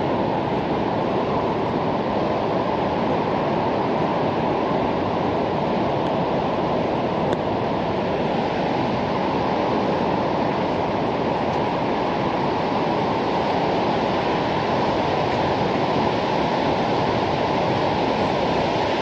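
Steady, unbroken rush of falling water from Shoshone Falls, the Snake River's large waterfall, heard from the overlook above the canyon.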